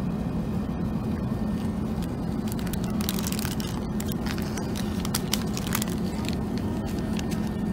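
Steady drone of an Airbus A380 cabin in flight, with the crinkling and rustling of a sandwich wrapper being handled from about two and a half seconds in to about six seconds.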